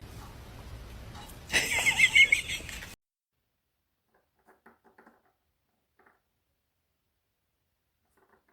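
A cat meowing in a short, high-pitched burst about a second and a half in, over faint room noise.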